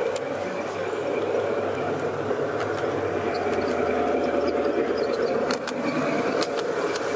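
A G-scale garden railway train running along its track, heard from a camera riding on it: a steady motor and gear hum with scattered sharp clicks from the wheels and track.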